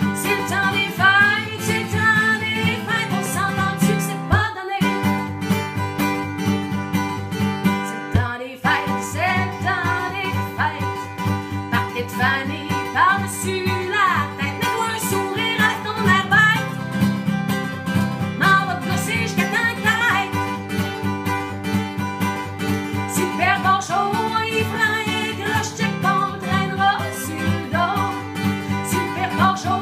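Country-folk song: strummed acoustic guitar under a woman singing in French. Two very short dropouts break the audio, about four and eight seconds in.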